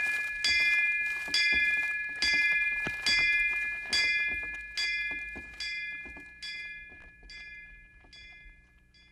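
A bell struck over and over, about once a second, each stroke ringing on with the same clear tones; the strokes grow steadily fainter and die away near the end.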